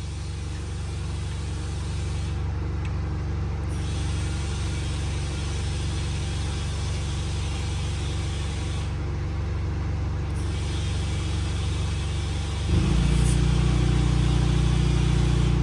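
Air compressor running steadily while inflating a side-by-side tire on a beadlock rim toward 10 PSI. About 13 seconds in it turns louder and its pitch changes.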